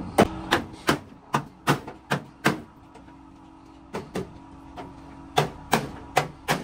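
Hammer blows on metal, a run of sharp ringing strikes about two or three a second, pausing briefly midway, typical of panel-beating a truck cabin's sheet metal.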